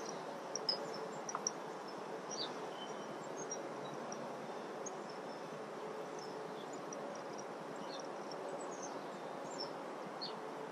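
Quiet outdoor ambience: a steady low hiss with scattered short, faint bird chirps throughout, and a couple of light clicks about a second in.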